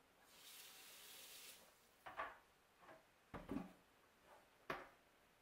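A brief faint rush of running tap water, then three light knocks as a plastic cutting board is handled against a stainless steel sink.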